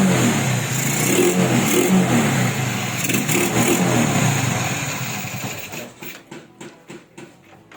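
Keeway KEE 125 motorcycle engine running after a tune-up, revved up and down several times. Near the end it drops back and turns quiet and uneven.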